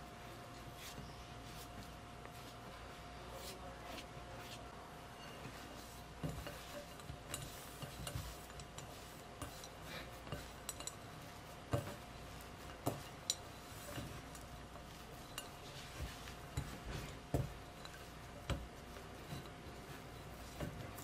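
Crumbly scone dough being gathered and gently pressed together by hand in a glass bowl, not kneaded. Soft rubbing of the dough comes with scattered light taps and clinks against the glass, which start after the first few seconds, over a faint steady hum.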